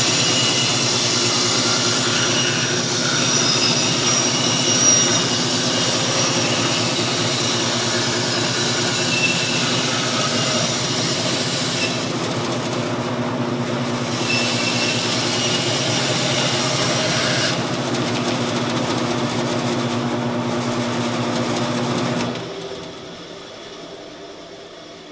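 Floor-standing bandsaw rip-cutting a strip from a wooden board: a steady motor hum under a bright hissing cut. The cutting hiss drops away briefly about halfway and again about two-thirds of the way through. Near the end the saw is switched off and winds down.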